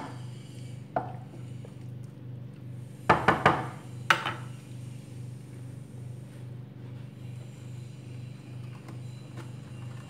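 A metal spoon clinking against a glass baking dish: a couple of light clinks, then a quick run of sharp clinks about three seconds in and one more a second later, as the spoon is tapped on the rim after stirring the vegetables. A steady low hum runs underneath.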